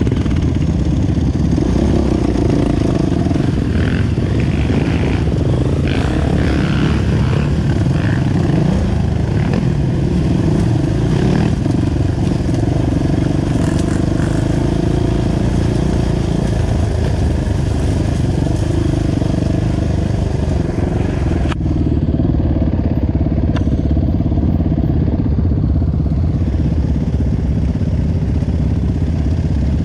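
Dirt bike engines running: the rider's own bike close up, with other trail bikes of the group around it. The sound is loud and continuous, with an abrupt change about two-thirds of the way through.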